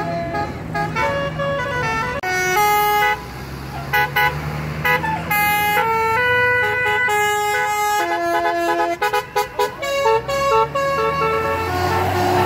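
Indonesian bus 'telolet' musical horns playing a quick tune of stepped notes, several horns sounding together. About three-quarters through it breaks into a rapid string of short toots. A rush of noise rises near the end.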